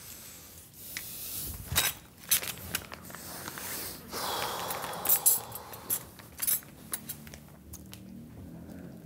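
Handling noise of a takeaway meal being eaten: scattered clicks, knocks and clinks of polystyrene food boxes and a zip-up cutlery case, with a rustle about four seconds in, and chewing and breathing close to the microphone.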